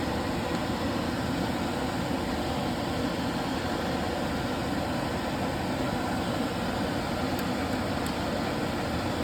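Steady, even rushing noise like a running fan or blower, unchanged throughout, with a couple of faint light clicks near the end.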